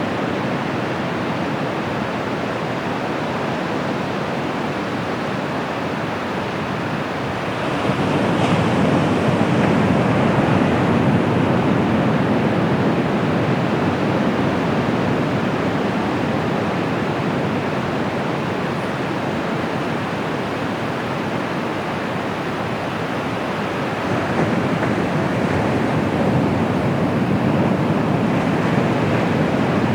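Surf on the Bay of Bengal: waves breaking and washing up the shore in a continuous rush, swelling louder about 8 seconds in and again near the end.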